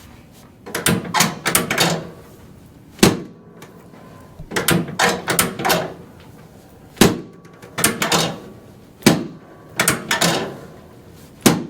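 A series of sharp cracks and knocks during chiropractic adjustments, some single and some in quick clusters of several, coming every second or two.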